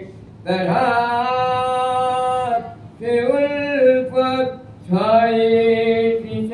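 A man chanting a soz, a Shia mourning elegy, unaccompanied, in long drawn-out held notes. He sings three phrases with short breaths between them.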